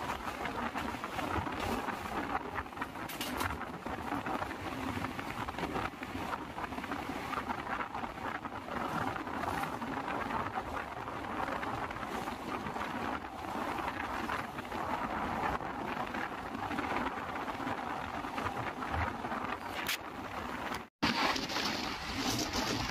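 Steady running noise of a passenger train heard from an open coach door: wheels rolling on the rails and wind rushing past the microphone, with a few sharp clicks. About twenty-one seconds in the sound cuts out for a moment and a different, hissier outdoor sound follows.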